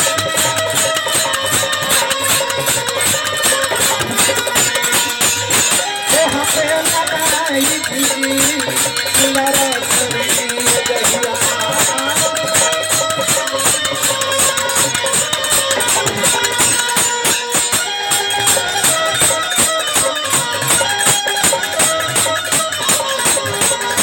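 Instrumental passage of Indian folk music with a fast, even jingling percussion beat and held melody notes.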